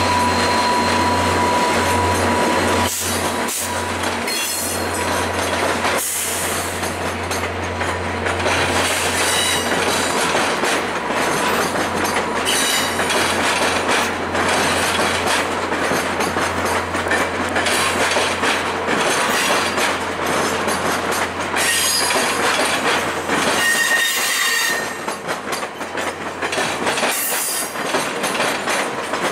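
Stainless-steel passenger cars of a long train rolling slowly past, their wheels clicking over rail joints and switches, with brief high wheel squeals. Under it, the low drone of the two departing F40PH-2 diesel locomotives fades away over the first several seconds.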